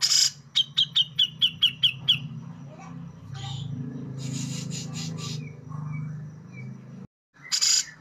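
Caged grey-cheeked bulbul (cucak jenggot) singing: a loud harsh burst, then a quick run of about nine sharp repeated high notes, later a scratchy chatter, over a steady low hum. The sound drops out briefly near the end and another harsh burst follows.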